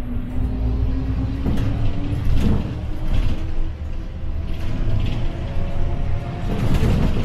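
City bus running on the road, heard from inside the cabin: a steady low engine rumble whose pitch rises over the first two seconds, with repeated short rattles and clatters from the bus body and fittings.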